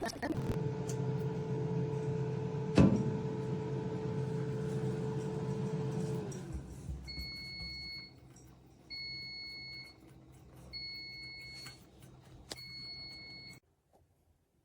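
A steady electrical hum with a sharp click about three seconds in; the hum dies away, then four long electronic beeps follow, each about a second long.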